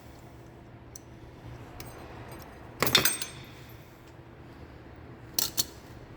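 Small metal clinks and taps of hand tools working a cotter pin out of the rear brake master cylinder's clevis pin: a quick cluster of clinks about three seconds in, then two sharp clicks near the end.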